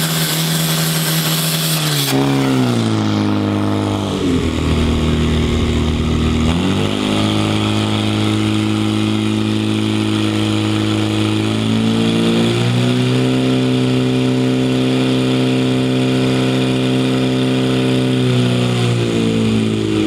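Portable fire pump's engine running hard under load while pumping water in a firefighting attack. Its pitch drops about two seconds in and stays lower for a few seconds, then climbs back and holds, steps up again past the middle and eases down near the end.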